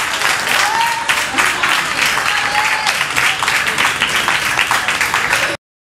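Audience applauding, with a few voices whooping and calling out over the clapping; the sound cuts off abruptly near the end.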